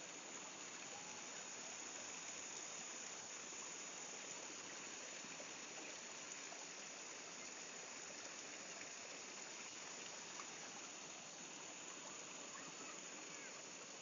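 Small stream running and splashing down over boulders in little cascades: a steady, even rush of water.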